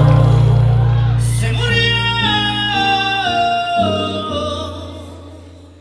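Recorded song ending: singing over a held low bass note, in a slow line of notes stepping downward, then the music fades out over the last couple of seconds.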